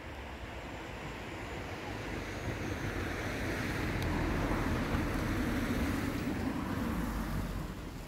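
A motor vehicle passing by: the noise of its engine and tyres rises to a peak in the middle and fades near the end.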